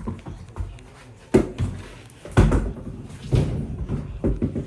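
Several dull thumps, roughly a second apart.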